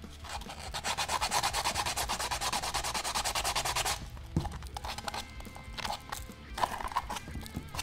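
Sandpaper rubbed quickly back and forth along the cut edge of a plastic bottle, smoothing off its sharp edges. The fast, even strokes stop about four seconds in, and a few slower, fainter scrapes follow.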